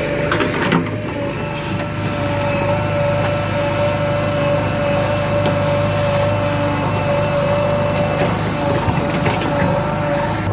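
Diesel engine of a JCB 3DX 49 hp backhoe loader running steadily during digging work, with a steady whine over the engine note. There is a sharp knock just under a second in, and a few faint clicks later.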